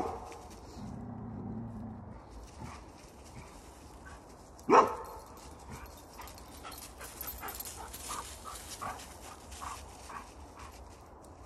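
Beauceron barking at sheet-draped 'ghost' figures: one loud bark right at the start and another a little under five seconds in, with a few fainter short sounds later on.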